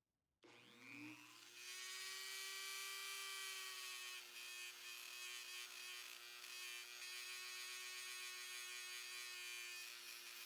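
Dremel rotary tool switched on about half a second in, spinning up to speed within about a second, then running at a steady high whine while its brush attachment cleans crud off a pocketknife.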